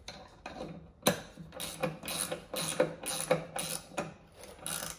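Hand ratchet wrench clicking in quick runs, about three to four clicks a second from about a second in, as the top bolt of a mower deck spindle is tightened down.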